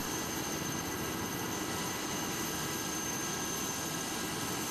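Helicopter's turbine engine running steadily on the ground: a steady high whine over an even rushing noise.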